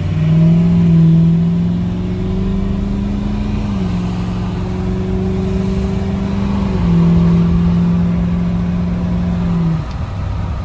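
Rebuilt Ford Powerstroke diesel engine accelerating hard, heard from inside the truck's cab. Its pitch climbs, then drops twice, about four and seven seconds in, as the transmission upshifts. It eases off near the end.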